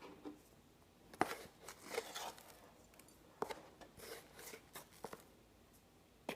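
Soft kitchen handling noises while cooking: a few light, sharp clicks spread out, with faint rustling between them.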